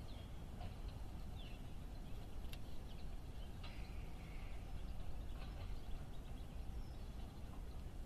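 Faint garden ambience: a steady low rumble with scattered short, faint bird chirps, and one sharp click about two and a half seconds in.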